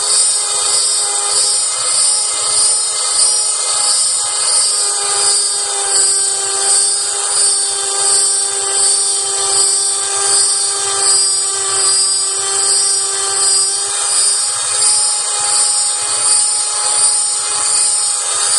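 Emulsifier motor of an EMCEE 1140 Mark-X Microsep fuel-water separometer running at high speed through the sample-cleaning cycle, mixing 50 ml of fuel in the syringe mounted on it. It makes a loud, steady high whine with a slight even pulse, a little over once a second.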